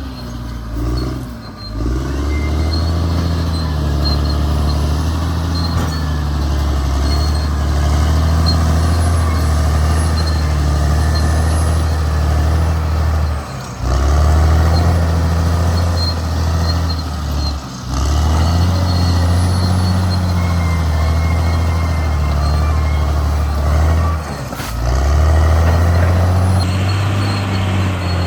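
CAT D6R XL bulldozer's diesel engine working under load, its pitch stepping up and down as the load changes, with brief dips in the engine sound about four times.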